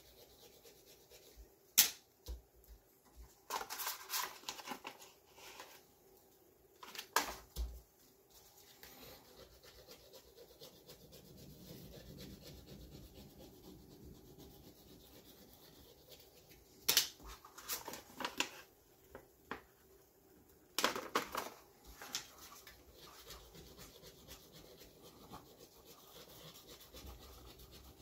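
Gloved hands rubbing and smoothing a self-adhesive magnetic sheet down onto a 3D-printer's aluminium bed, with the paper backing rustling as it is peeled away. Several short sharp clicks and a few brief bursts of rustling stand out over a faint steady background.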